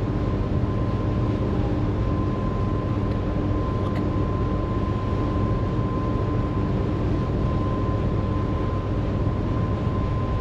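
Ferry engines droning steadily, a constant low rumble with a fixed steady hum over it.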